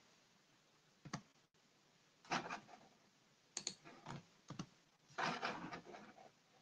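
Faint typing on a computer keyboard: several short bursts of keystrokes with gaps between them.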